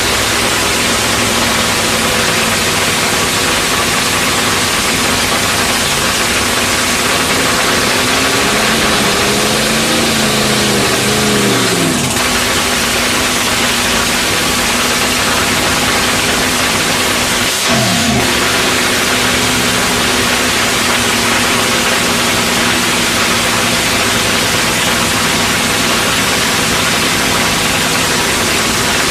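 Top fuel dragster's supercharged nitromethane-burning V8 running loudly under a heavy rushing hiss. The pitch rises and wavers about a third of the way in, then drops back. It dips sharply for a moment a little past halfway before settling to a steady run.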